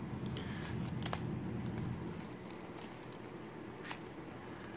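Plastic shrink wrap on a deck of cards crinkling quietly as fingers pick and peel at it, with a few sharp crackles.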